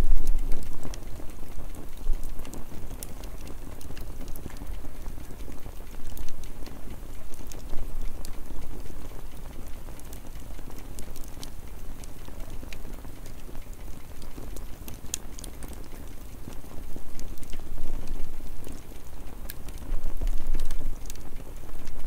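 Wood campfire burning: a steady low rush of flames with scattered sharp crackles and pops from the burning sticks.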